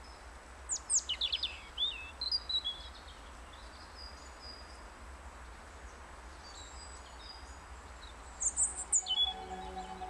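European robin singing: a burst of high, thin, rapidly changing notes about a second in, softer scattered notes after it, and a second burst near the end, over a steady low hum.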